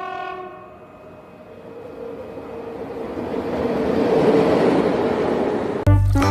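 A train horn dying away, then the rumble of a train building steadily louder. Music with heavy bass notes cuts in near the end.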